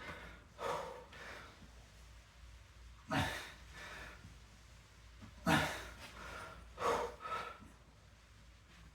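A man breathing hard from exertion: quick, forceful huffs through the nose and mouth, mostly in pairs, every two seconds or so.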